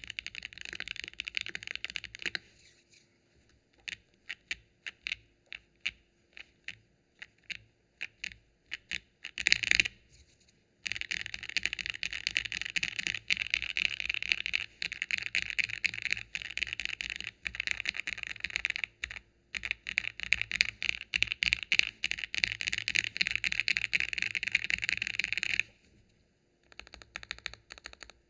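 Typing on a mechanical keyboard with factory-lubed Gateron Oil King linear switches, GMK keycaps and an aluminium plate, case foam fitted. A short fast run of typing, then separate keystrokes about two a second for several seconds, then a long run of fast continuous typing that pauses briefly near the end.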